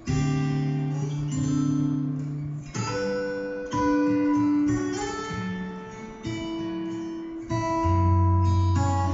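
Recorded acoustic guitar music: plucked and strummed chords that ring on, a new chord every second or so.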